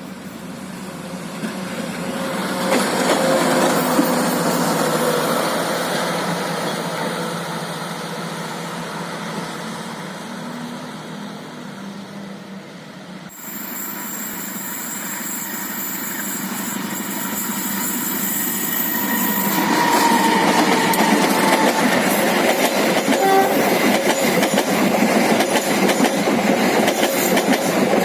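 Trains passing on the line: one runs by and fades away, then after a sudden cut another approaches and passes loudly with wheels clattering. A horn sounds briefly.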